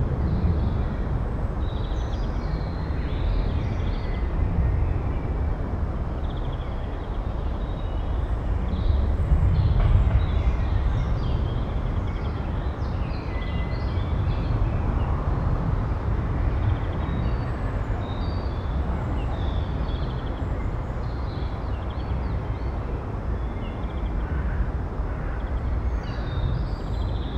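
A steady low rumble of outdoor background noise, swelling a little about ten seconds in, with small birds chirping in short high calls throughout.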